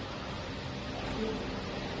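3D CNC wire bending machine at work, its bending head rotating and bending a steel wire, over a steady hiss of workshop noise, with a brief tone about a second in.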